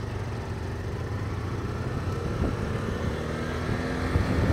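Motorcycle engines running at road speed, a steady low engine hum with wind and road noise, growing a little louder toward the end.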